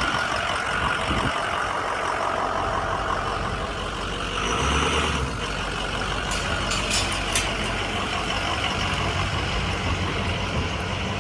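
A truck engine running steadily, with a few sharp clicks about six to seven seconds in.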